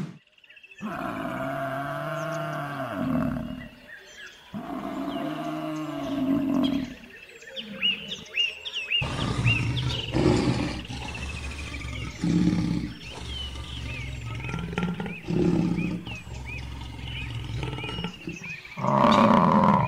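Lions roaring: two long, drawn-out calls, then a run of shorter, low calls, with birds chirping in the background and a loud burst near the end.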